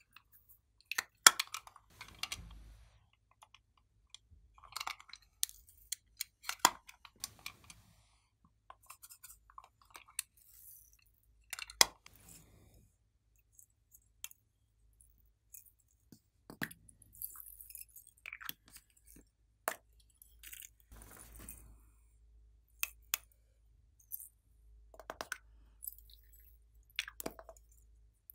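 Small plastic containers being handled, snapped open and tipped out by hand: irregular clicks and snaps of lids, with short rattles of glitter and beads falling into a clear tray.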